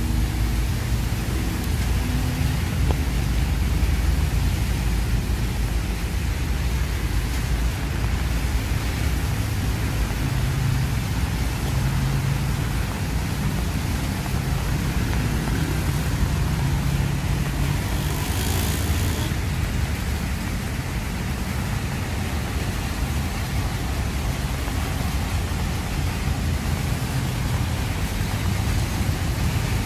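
Steady road traffic on wet roads: a low engine rumble under an even hiss of tyres on wet tarmac. About two-thirds of the way in comes a brief, sharper burst of hiss.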